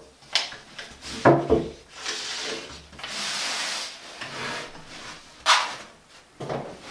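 Wood knocking and rubbing as a loose 12 mm laminate floor plank is set down and shifted against the foot of a door, with a scratchy stroke of a pencil marking the door about three seconds in. A sharp scrape comes about five and a half seconds in, then more knocks as the door is moved.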